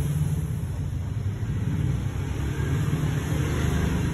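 A steady low rumble with a faint hiss above it, unchanging throughout, with no distinct clicks or events.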